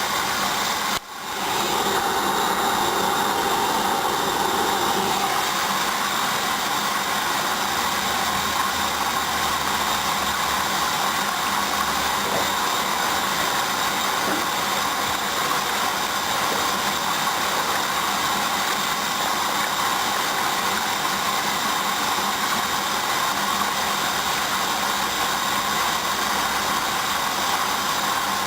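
Hoover Dynamic front-loading washing machine in the main wash of its duvet programme: the motor turning the drum, a steady mechanical running noise. The sound drops out briefly about a second in.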